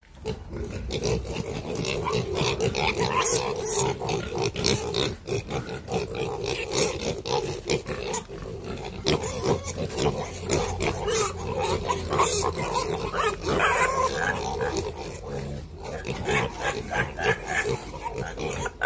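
A group of one-month-old piglets grunting continuously together, with many short clicks and knocks mixed in.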